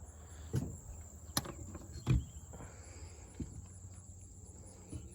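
A handful of light, scattered knocks and clicks of hand work on the exposed valve gear of a 1950 John Deere M engine, checking whether the valves are stuck; the one about two seconds in is the loudest. Crickets chirp steadily and thinly behind it.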